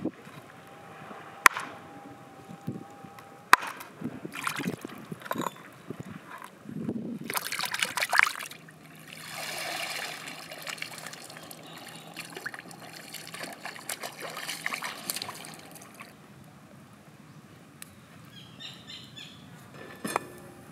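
A knife chopping on a wooden cutting board, a few separate knocks, followed by water pouring and trickling out through a woven bamboo basket as fish are rinsed in the sea. A light click near the end as a frying pan is set on a metal grill.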